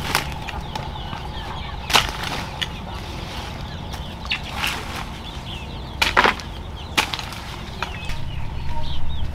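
Hoe blade chopping into soil and broccoli stalks: several dull knocks, roughly one every second or two. Birds chirp throughout.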